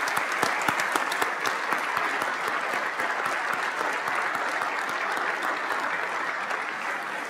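Applause from a seated audience of legislators in a large chamber, steady throughout and fading near the end.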